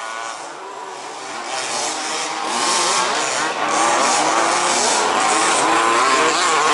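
Several 1/5-scale RC buggies' small two-stroke petrol engines revving up and down together as the buggies race around the track, getting louder about two seconds in.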